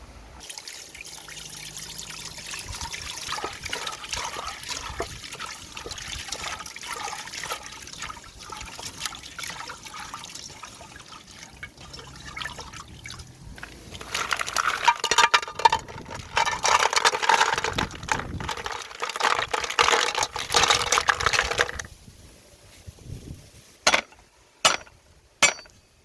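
Water splashing and trickling, louder for several seconds in the second half, then stopping. Near the end come a few sharp knocks.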